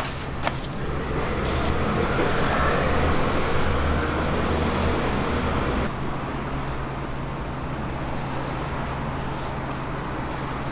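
Street traffic noise over a steady low hum: a vehicle passing swells up and fades in the first half, and the louder passage drops away suddenly about six seconds in.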